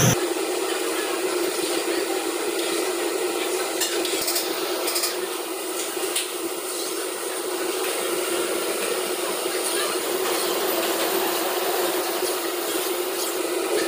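Gulab jamun dough balls deep-frying in a large kadhai of hot oil: a steady sizzle, with a few sharp clicks about four and five seconds in.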